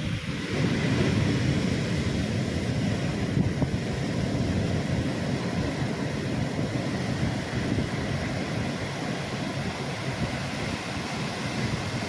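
Ocean surf washing in on a beach, under a steady rumble of wind buffeting the microphone.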